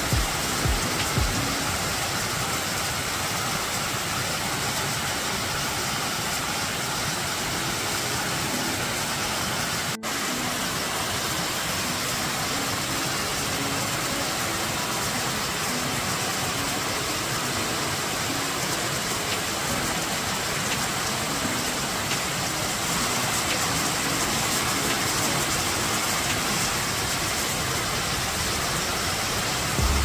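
Waterfall cascading over rocks: a steady, even rush of water, broken by a brief dropout about ten seconds in.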